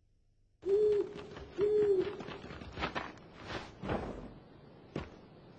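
An owl hooting twice, two short hoots about a second apart, then faint rustling and a few soft knocks.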